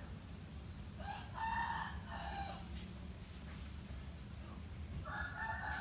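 Rooster crowing twice, each call about a second and a half long, faint compared with the nearby voices.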